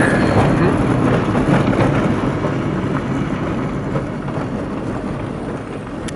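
A vehicle driving on a bumpy dirt road: a steady rumble of tyres on gravel and dirt, with scattered light rattles.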